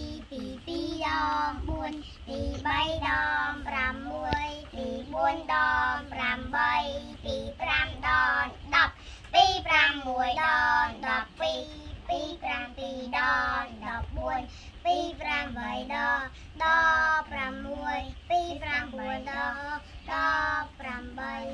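A young child singing in a high voice, in short phrases with a wavering pitch.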